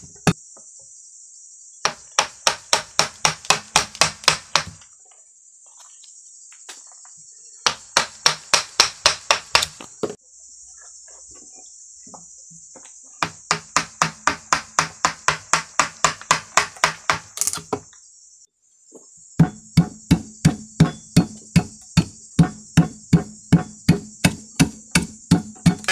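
Rapid blows of a steel-handled striking tool on a wooden log, knocking off bark and chips. The blows come in four runs of about a dozen, roughly four a second, with short pauses between them. Insects buzz steadily in the background.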